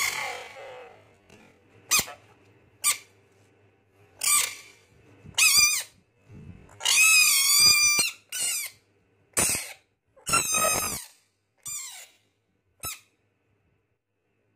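Bullfrog giving a series of short, squeaky distress screams as it is prodded by hand, with one longer, wavering scream about seven seconds in that lasts just over a second. A couple of sharp clicks come early on.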